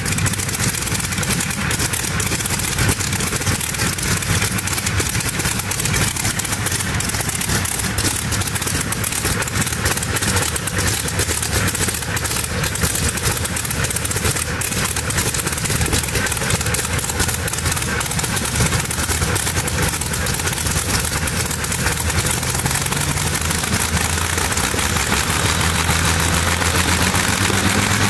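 Rolls-Royce Griffon Mk58 V12 aero engine in a tractor-pulling machine, running steadily at idle, with its pitch creeping up slightly near the end. It is a test run after repair, with the supercharger clutch reworked and a new fuel distribution fitted.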